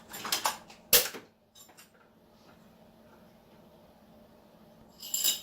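A plastic drill-bit case being handled: some scraping, then a sharp snap about a second in, then quiet until a short clatter of metal bits near the end.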